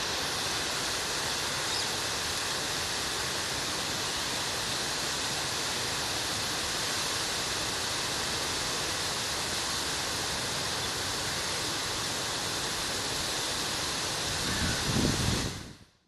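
Steady rush of flowing river water near a waterfall, an even unbroken hiss that fades in at the start and out at the end. A brief low rumble swells about a second before the fade-out.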